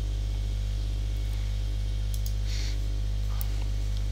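Steady low electrical mains hum with its overtones and a light hiss. About two and a half seconds in there is a short soft hiss, and a few faint computer mouse clicks can be heard.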